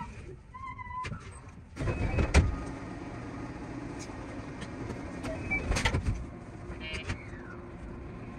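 Sped-up cab sound of a JR West 223 series electric train standing at a station platform: a low steady hum, broken by two short loud noises about two seconds and six seconds in, and a brief rapid ticking near the end.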